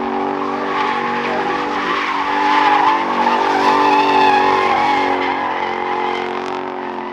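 A car's engine held at high, steady revs while its tyres squeal, as in a burnout or donut. The sound swells in the middle and fades off near the end.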